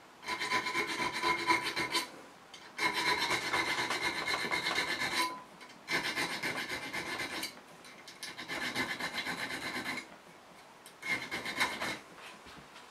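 Small needle file rasping back and forth across the steel spine of a knife blade held in a vise, cutting decorative notches: five bursts of quick strokes with short pauses between them, the blade giving a metallic ring under the rasp.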